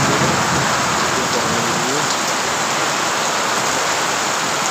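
Heavy rain pouring down steadily onto puddled ground, an even, continuous hiss.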